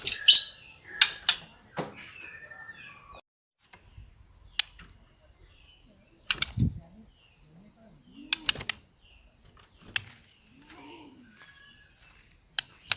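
White-rumped shama singing in short, scattered phrases of chirps and whistles, its song filled with canary-like notes, loudest at the start. Sharp clicks come in between, about every one to two seconds.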